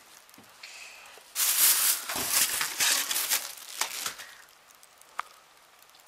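Plastic packaging bags crinkling and rustling as they are handled inside a cardboard box, in irregular bursts for about three seconds, followed by a single sharp click near the end.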